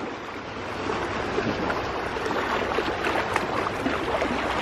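Sea water lapping and sloshing close by, a steady wash with many small splashes.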